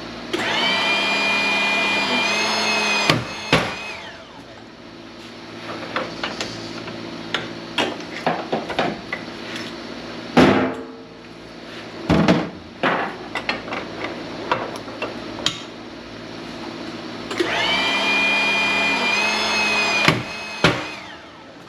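Hydraulic shop press pump whining as it builds pressure on a small transformer, rising in pitch under load and then giving way to a sharp crack as the transformer breaks apart. Scattered metal clanks and knocks follow, with the loudest bang about ten seconds in. The pump whines again near the end, and another crack follows.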